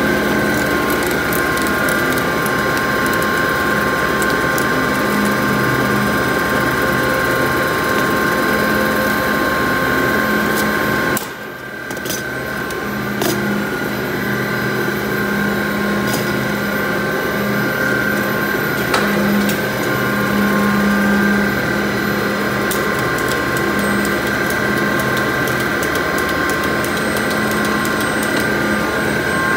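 Steady running of pipe-extrusion and coiling machinery, a constant hum with a high steady whine, overlaid by scattered clicks and ratcheting of a hand strapping tool tensioning and sealing strap around a coil of HDPE pipe. The machine sound drops away briefly about eleven seconds in, then returns.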